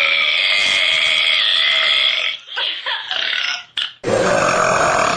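A woman burping: one long drawn-out burp lasting over two seconds, then a shorter one. About four seconds in, the sound cuts abruptly to another long burp.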